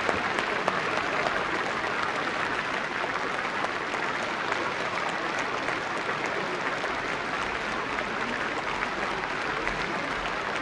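A large audience applauding steadily, many hands clapping together into an even wash of sound, with a few sharper single claps standing out about a second in.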